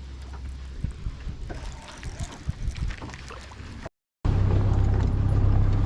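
Wind on the microphone and a few knocks against a small boat's hull over a low hum. After a short break, a boat motor runs loud and steady with a low drone.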